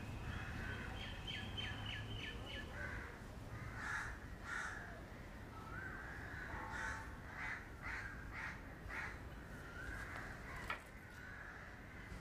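Crows cawing repeatedly, with a quick run of small chirps from another bird about a second in.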